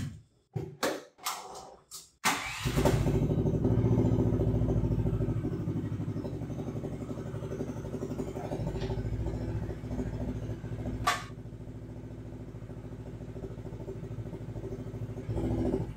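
AGT LH12R mini excavator's engine starting about two seconds in, after a few knocks and clicks, then running steadily while the boom and bucket are curled in. It is louder for the first several seconds and settles to a quieter steady run after a sharp clank about eleven seconds in.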